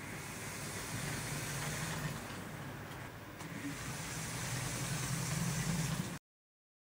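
LEGO Technic electric motor and gear train whirring as it drives a spinning fan rotor, with an even hiss from the blades. The hum rises and falls in loudness every couple of seconds, then cuts off suddenly near the end.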